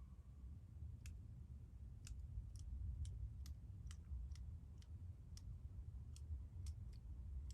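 Faint, sharp, irregular clicks, roughly two a second, over a low steady rumble.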